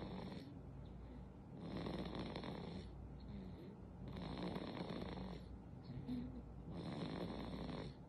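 Sleeping infant snoring, a breathy snore about every two seconds in an even rhythm.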